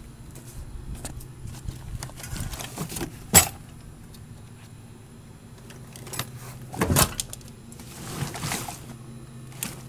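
Handling noise in a car trunk: two sharp knocks, about three and a half and seven seconds in, with rustling in between as the trunk's contents and trim panels are moved, over a steady low hum.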